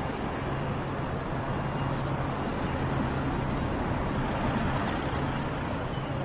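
City street traffic: a car drives past close by and pulls away, over the steady hum of surrounding traffic.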